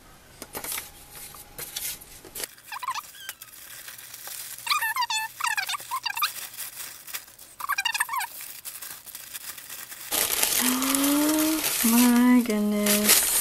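A plastic shipping mailer and tissue paper rustling and crinkling as a parcel is opened and unwrapped by hand, louder and denser in the last few seconds. A few short squeaky chirps come in the middle, and a brief vocal murmur near the end.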